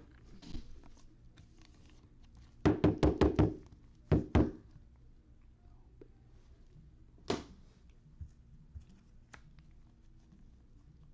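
Knocks on a tabletop while trading cards and packs are handled: a quick run of about six sharp knocks, two more a second later, then a single one, over faint rustling of cards.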